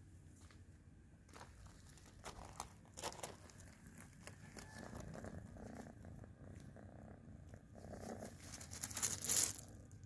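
Dry grass and plant stems rustling and crackling, with a low steady rumble underneath; the loudest rustle comes about nine seconds in.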